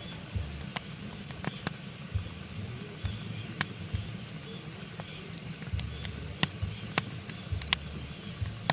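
Pine logs burning in a fireplace, crackling with irregular sharp pops over a steady hiss and a low, uneven rumble of the flames.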